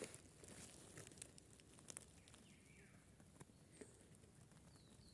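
Near silence: faint, scattered crackles and ticks from a small campfire burning down under roasting sausages, with a few faint bird chirps.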